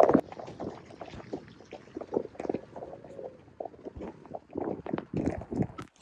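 Rain and water splashing on a boat's deck, with scattered irregular crackles and knocks.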